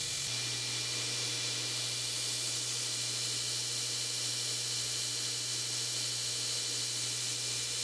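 Belt grinder running idle with nothing against the belt: a steady low motor hum with an even hiss over it.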